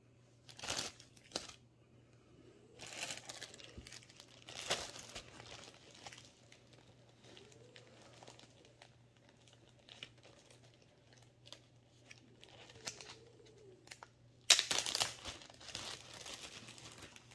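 Zip-top plastic bag of small toy figures being handled and opened, crinkling in short bursts, the loudest and longest one about 14.5 seconds in.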